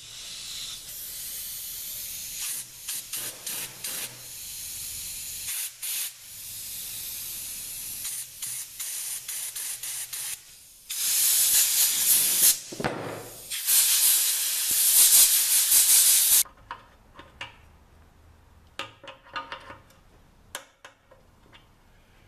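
Water spraying into a rusty mini bike gas tank to rinse out debris: a hissing spray that flickers on and off, turns much louder in two long spells past the middle, then cuts off suddenly, followed by a few light knocks.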